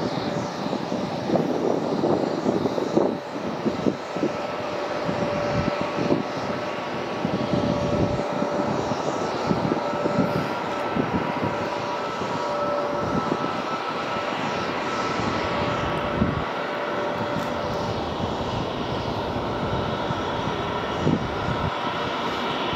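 Airbus A321neo's two Pratt & Whitney PW1133G geared turbofan engines running at taxi power as the airliner taxis: a steady jet rumble with held tones above it.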